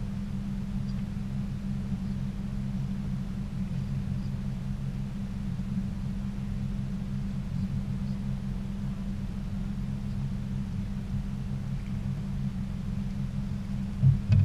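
A boat's motor running steadily, giving a low, even hum, with a brief thump near the end.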